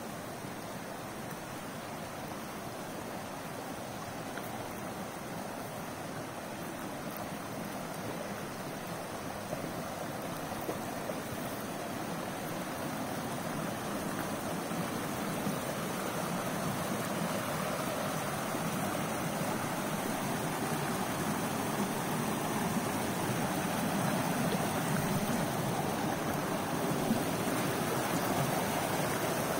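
Small mountain creek rushing and splashing over mossy rocks, a steady rush of water that grows louder as it comes nearer.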